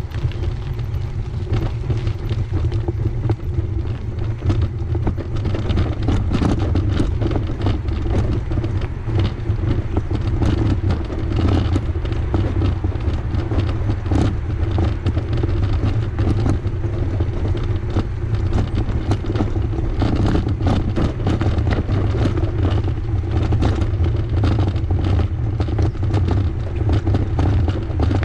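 Ride noise of a bicycle rolling along a path, picked up by a camera on the bike: a steady low rumble with many small clicks and rattles throughout.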